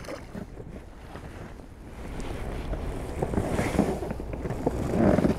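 Wind buffeting the microphone and sea water lapping and slapping against a small boat's hull, with scattered small knocks. It gets louder about two seconds in.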